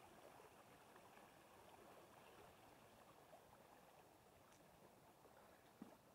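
Near silence: the faint, steady flow of a small creek, with one soft knock near the end.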